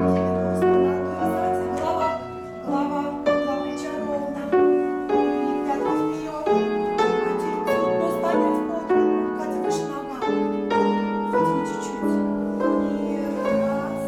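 Piano playing a steady, measured accompaniment, with chords and notes struck at an even pulse of about three every two seconds.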